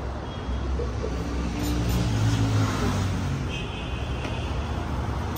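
Car engine and road noise: a steady low rumble, with a louder engine note that rises and falls about two to three seconds in.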